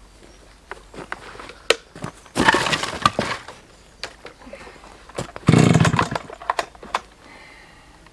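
Two pulls on a Husqvarna 365 chainsaw's recoil starter, each a short rasping whir, about two and a half seconds in and again about five and a half seconds in, with handling clicks around them. The engine doesn't fire because the ignition switch has been left off.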